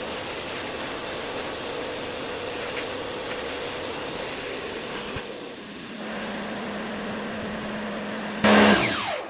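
Pressure washer spraying steadily against a wall, its motor humming beneath the hiss of the jet. Near the end there is a short, much louder blast, and then the sound drops away with a falling pitch.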